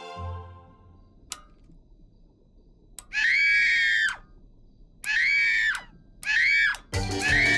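Three loud, drawn-out vocal cries, each rising and then falling in pitch, the first the longest, followed near the end by the cartoon's closing theme music starting up.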